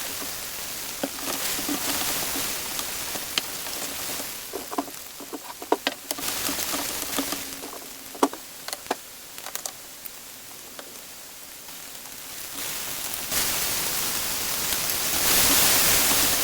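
Kitchen cooking sounds: a steady hiss with a cluster of sharp taps and clicks in the middle, and the hiss growing louder near the end.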